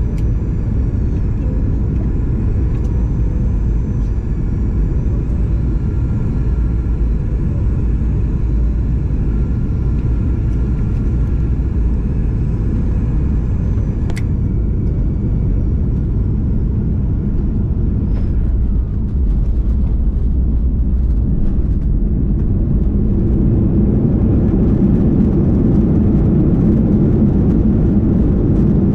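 Boeing 737-900ER cabin noise beside its CFM56-7B engine during landing: a steady low rumble with a faint high engine whine on short final. A single sharp click comes about halfway through, and in the last part, with the wheels on the runway, the rumble grows louder during the rollout.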